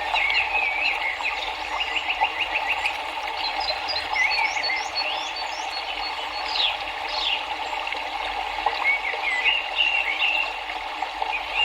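River water rushing steadily, with several songbirds chirping and calling over it, including a rapid trill about two seconds in.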